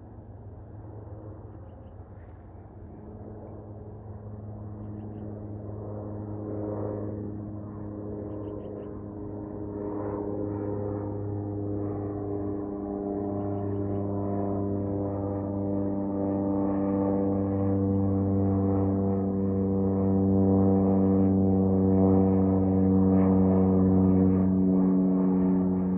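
Small single-engine propeller airplane climbing out after takeoff. Its engine and propeller drone grows steadily louder as it approaches overhead, a low hum with a stack of steady overtones.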